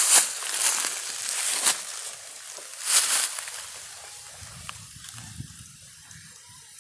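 Dry leaves and vegetation rustling and crackling in several bursts over the first three seconds, then fading to a faint background.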